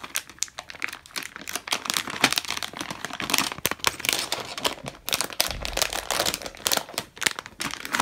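Plastic zip-lock bag crinkling and crackling as it is handled and worked open, in dense irregular bursts of rustle.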